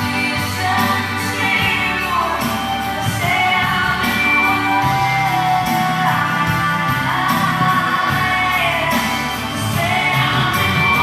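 A song plays, a singer holding long, gliding notes over a steady instrumental backing.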